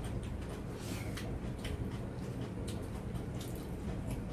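Eating sounds of people eating by hand from glass plates: scattered small clicks and taps, over a steady low hum.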